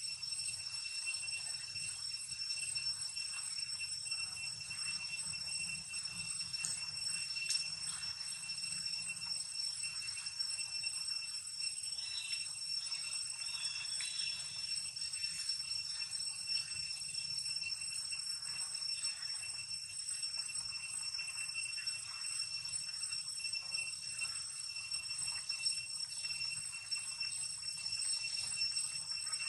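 Steady high-pitched drone of insects, one unchanging ringing tone with overtones, with a few faint short chirps and ticks partway through.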